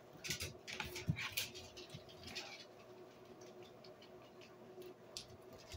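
Close-up eating sounds: wet chewing and lip smacks, with forks and a spoon scraping and tapping on plates. The clicks are thickest in the first couple of seconds, then thin out to a few.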